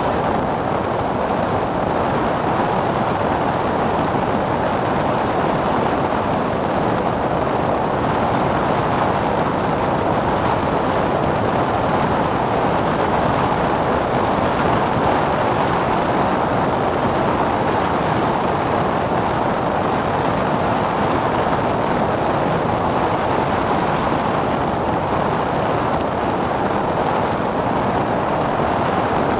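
Cessna 177 light aircraft in flight, heard from inside the cabin: engine, propeller and rushing air blend into a steady, unchanging drone.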